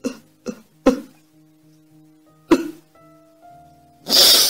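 A woman sobbing: short, catching sobs and gasps, then a longer, hissing breath near the end, acted as part of a dramatic reading. Soft classical piano music plays underneath.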